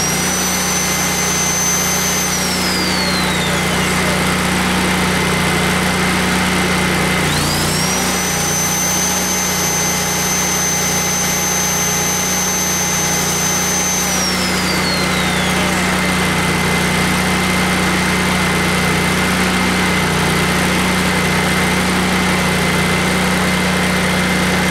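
Miller Bobcat 250 welder-generator's 20 hp twin-cylinder Kohler engine running steadily. Twice, a corded circular saw powered from it spins up with a rising whine, holds a high steady tone and winds down: once at the very start, and again from about seven seconds in for about six seconds.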